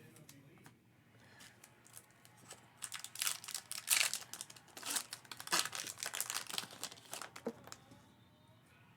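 Foil trading-card pack wrapper crinkling and tearing as it is opened, busiest from about three to seven and a half seconds in.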